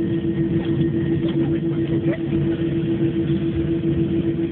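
Airbus A321 cabin noise while taxiing: the jet engines at taxi power give a steady rumble, with one steady droning tone over it, heard through a mobile phone's microphone.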